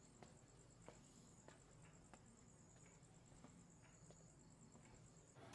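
Near silence with a faint, high, steady insect trill and soft ticks about every two-thirds of a second.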